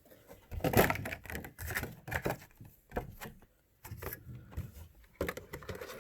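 A boxed Funko Pop figure and its plastic protector case being handled: irregular clicks, taps and rustles of cardboard and plastic, loudest about a second in.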